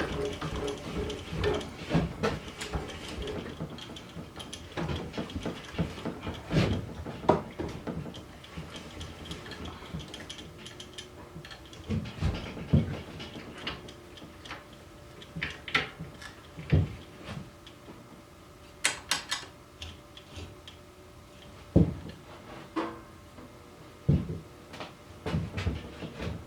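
Irregular metal clunks, knocks and scrapes as a drill press vise is shifted into position on the drill press table, with one brief ringing metal clink about two-thirds of the way through.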